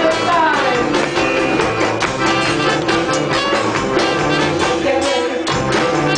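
Live band music led by a piano accordion, with an electric guitar.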